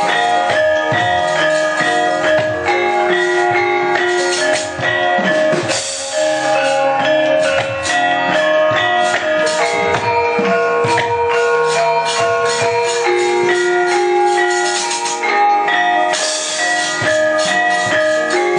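Javanese gamelan orchestra playing: bronze metallophones and gongs ringing sustained tones over hand-drum strokes. Several bursts of bright metallic clatter, typical of the puppeteer's keprak plates struck to accompany puppet movement, come about six seconds in and again near the end.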